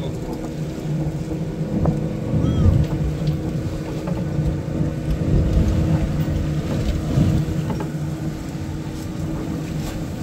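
Fishing boat's engine running steadily, a low hum with a constant tone.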